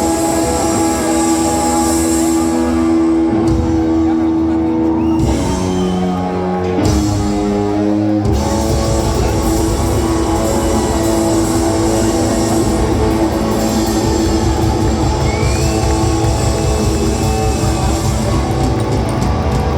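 Live rockabilly band playing an instrumental passage with electric guitar to the fore. About three seconds in the bottom end drops away, leaving held guitar notes, and the full band comes back in around eight seconds in.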